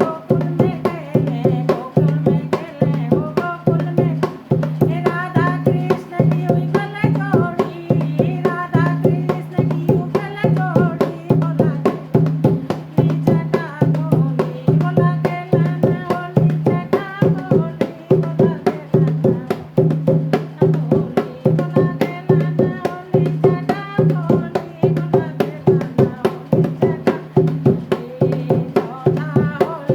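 Devotional Holi folk song: a voice singing in phrases over a quick, steady hand-drum beat and a sustained low drone.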